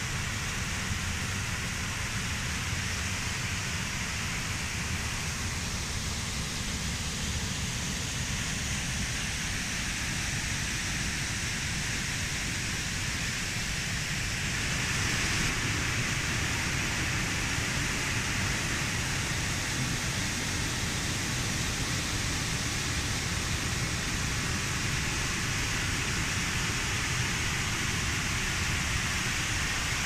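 Waterfall spilling over a concrete dam wall into a pool: a steady rush of falling water, a little louder about halfway through.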